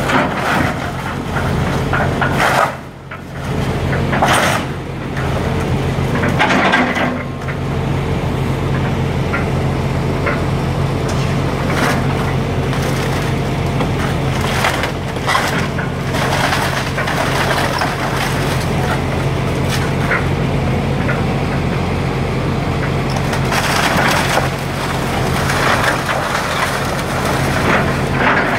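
Excavator bucket crushing and tearing apart a house's wooden framing and roof, with wood cracking and splintering over the steady hum of the excavator's diesel engine. The loudest crunches come in the first several seconds and again near the end.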